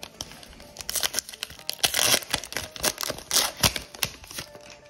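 Foil wrapper of a Panini Mosaic football card pack being torn open by hand and crinkled: a dense run of sharp crackling rips, loudest in the middle, dying away near the end.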